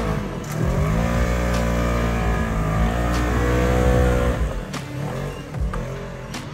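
Sport side-by-side UTV engine revving hard while climbing a rock-ledge trail, its wheels spinning on the rock; the revs climb, hold high for a few seconds, then drop off, with a couple of sharp knocks near the end.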